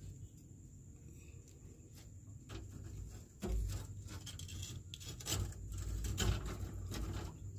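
Rubbing and scraping with many small clicks and knocks, and a few louder low thumps in the second half.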